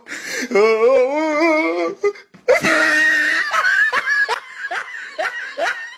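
A woman laughing: a wavering, drawn-out giggle, a short break about two seconds in, then a string of quick breathy laugh pulses that thin out toward the end.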